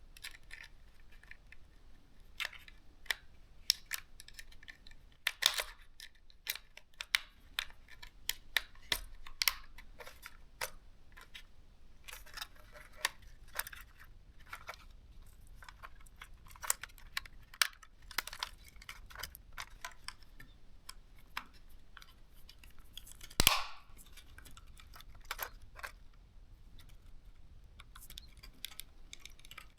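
A plastic pry tool working the plastic shell of a DJI Mini 3 drone's lower housing open: a long run of small plastic clicks and ticks as the tool levers the clips. One louder snap comes about three-quarters of the way through.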